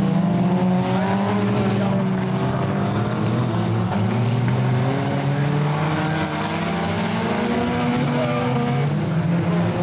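Several stock car racing engines running hard together, their pitches rising and falling as the cars accelerate and lift through the turn.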